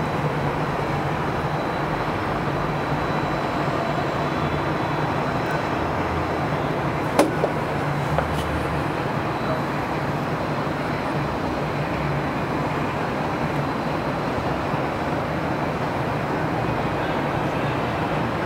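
Steady city din of traffic rising from far below a high-rise, with a constant low hum and a single click about seven seconds in.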